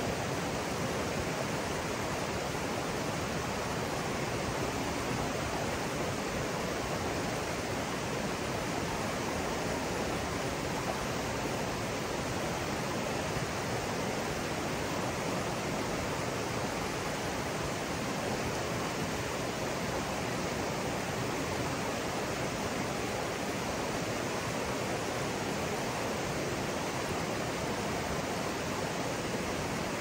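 River water rushing over rocks and shallow rapids: a steady, even rush of flowing water that does not change.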